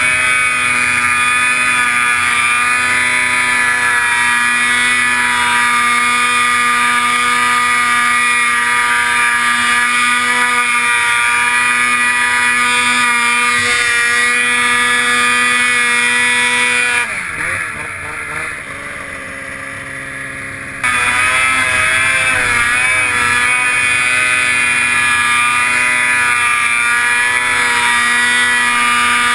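Snowmobile engine running hard at high, steady revs while pushing through deep powder. About 17 seconds in the throttle comes off for a few seconds and the revs sag, then it goes back to full throttle at the same steady pitch.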